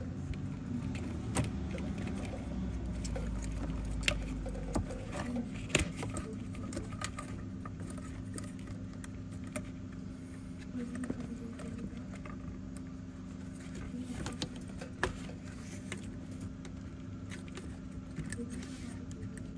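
Handling noise as a silicone turbo charge pipe with metal hose clamps is worked into place by hand: scattered clicks, clinks and light knocks of the clamp hardware and pipe against the surrounding parts, over a steady low hum.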